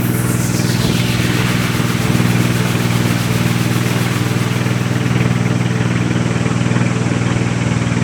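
Engine running steadily at a constant pace, with a high whoosh falling in pitch during the first second.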